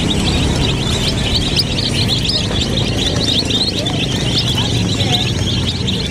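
A flock of domestic chicks peeping constantly, many short high cheeps overlapping one another, over a steady low rumble.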